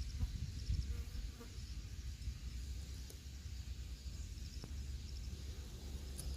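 Crickets chirping faintly in short, repeated pulsed trills, over a steady low rumble.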